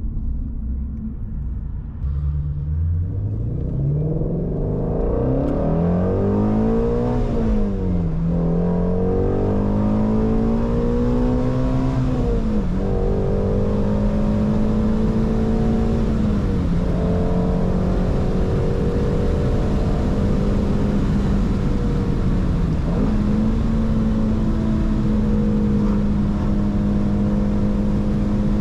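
Shelby GT350's 5.2-litre flat-plane-crank V8 pulling away and accelerating, the revs rising and dropping back with three upshifts, then running at steady cruising revs with one step up in pitch near the end.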